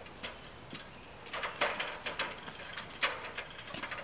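Metal ground ladder being slid into the fire truck's rear ladder bed: a string of sharp clanks and rattles in small clusters about a second apart.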